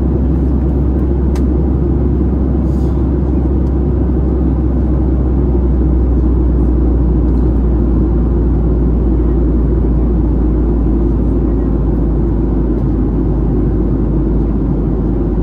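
Steady in-cabin noise of a Boeing 737-700 in flight: a constant low rumble of its CFM56-7B engines and the airflow over the fuselage, heard from a window seat.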